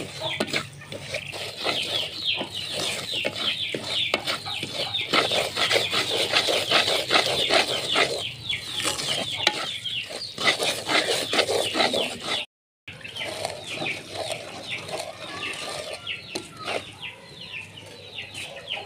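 Chickens cheeping and clucking in many quick, falling chirps, broken by a brief gap about two-thirds through.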